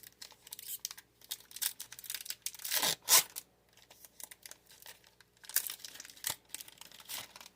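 A foil Pokémon booster pack wrapper being torn open and crinkled by hand, in a run of short crackles with the loudest rip about three seconds in.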